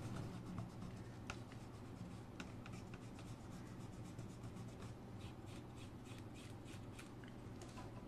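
A cloth wiping and rubbing over a laptop motherboard to clean old thermal paste off the processor and graphics chip with isopropyl alcohol: faint rubbing with many light scratchy ticks.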